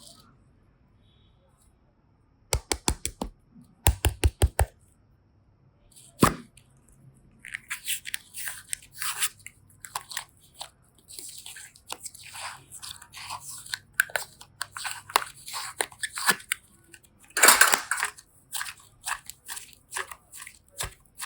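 Crunchy slime being squished and pressed by hand: a dense run of crackling, squelching pops. Before it come two quick runs of about five sharp clicks and then a single click.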